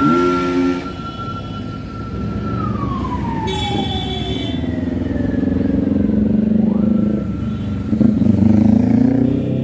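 A siren holding a high tone, then sliding slowly down and rising back up, over the engines of passing cars. A motorcycle revs loudly past near the end.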